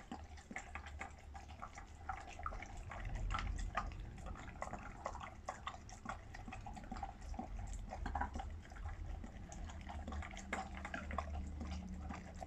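Pets eating from their bowls: irregular wet chewing, smacking and licking sounds.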